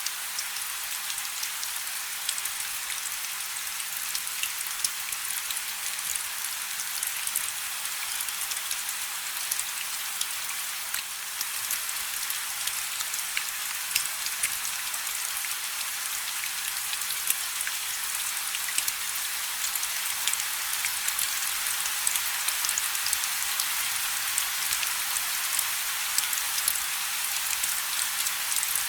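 Steady rain falling, a continuous hiss with many individual drops ticking on a surface and a few louder close drops.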